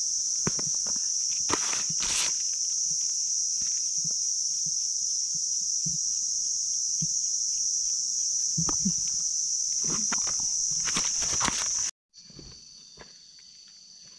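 Steady high-pitched drone of forest insects, with scattered rustles and crunches of footsteps on leaf litter. About twelve seconds in the sound cuts off abruptly, then returns quieter with the insect drone a little lower.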